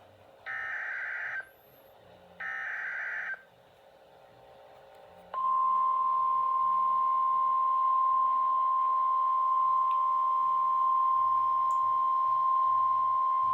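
Emergency Alert System SAME header: two bursts of rapid warbling data tones, about a second each. After a short pause, the steady single-pitch attention tone near 1 kHz starts about five seconds in and holds. This sequence announces a National Weather Service warning.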